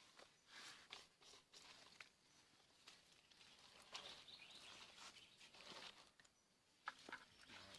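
Faint scattered clicks with short scraping and rustling noises, irregular, the sharpest click near the end.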